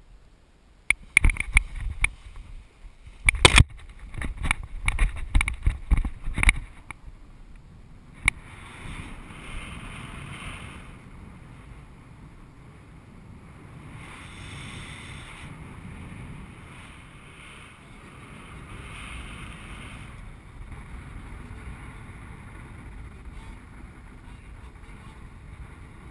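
Wind rushing over the microphone of a paraglider in flight, a steady rush that swells and eases every few seconds. It is preceded by a burst of loud knocks and thumps against the microphone during the first seven seconds, during the launch run.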